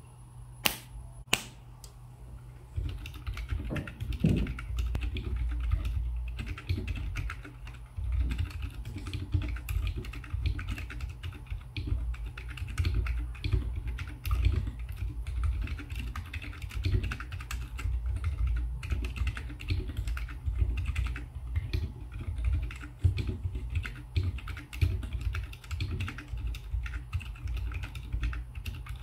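Fast, continuous typing on a Jorne split ergonomic mechanical keyboard fitted with silent tactile switches (Boba U4 stems in Nightwalker Solaris housings, unlubed) under SA-profile keycaps, in a 3D-printed case. A couple of sharp clicks come about a second in, then a steady patter of keystrokes runs on.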